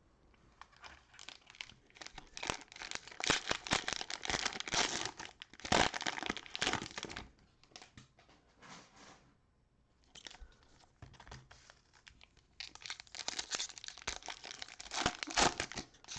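Plastic cellophane wrapper of a basketball card cello pack crinkling and tearing as it is opened, in two spells of dense crackling: one through the first half and another starting about three-quarters of the way in.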